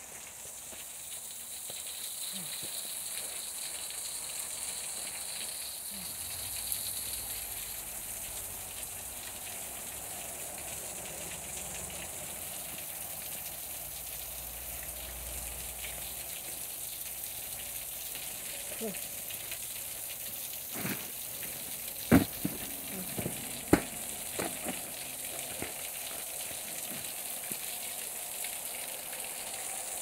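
Meltwater trickling and splashing down the rock behind a frozen waterfall's ice, a steady hiss. A few sharp clicks come about two-thirds of the way through.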